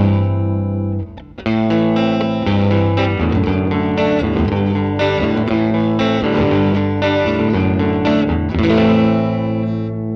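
Electric guitar, a Fender Stratocaster, played through a Line 6 Helix amp-and-cab model: ringing chords and picked notes, with a short break about a second in.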